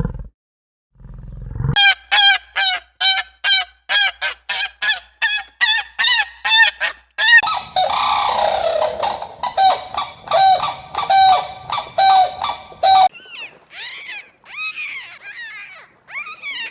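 Rapid series of honking bird calls, about three a second, with a noisier, overlapping stretch about eight seconds in. Fainter, more scattered calls follow near the end.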